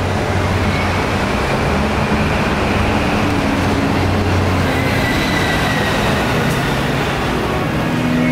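Steady rumble of city traffic and rail, with a faint high whine above it.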